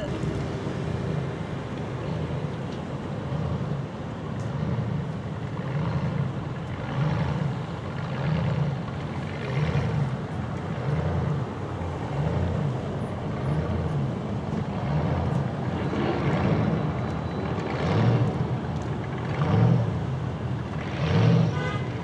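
Hot rod, rat rod and classic car engines running through loud exhausts as a line of cars drives slowly past. There is a regular throbbing swell, with louder moments near the end.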